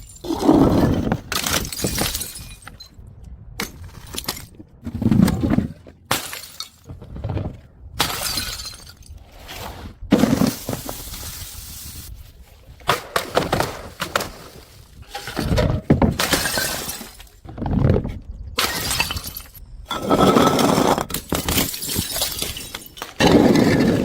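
Glass bottles shattering one after another, more than a dozen separate smashes, each a sudden crash with a short rattle of breaking glass after it.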